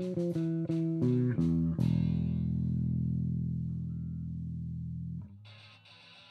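Electric bass guitar plucking a quick run of notes, then holding one long low note that rings for about three seconds and stops abruptly. A much quieter, distorted, noisy passage follows near the end.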